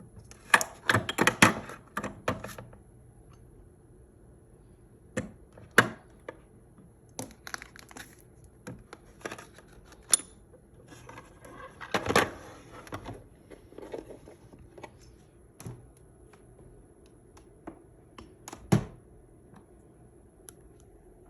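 Skincare product containers clicking and knocking as they are handled and set down, in irregular clusters; the busiest and loudest run is in the first two seconds, with single sharper knocks later.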